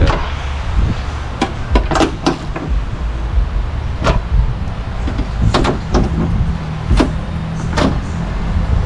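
Hand ratchet clicking in short, irregular strokes as the spoiler's mounting nuts are snugged down, over a steady low rumble.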